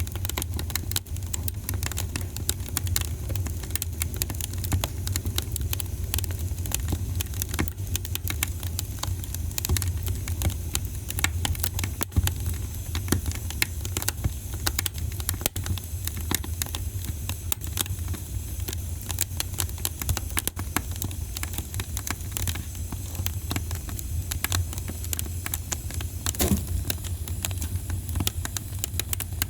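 Wood fire crackling and popping in a fireplace: a dense, irregular stream of small sharp snaps over a steady low rumble, with one louder pop near the end.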